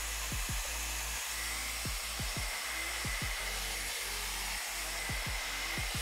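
TYMO Airhype Lite hair dryer blowing: a steady rushing hiss of air with a faint high whine at times. Background music with deep bass notes that fall in pitch plays underneath.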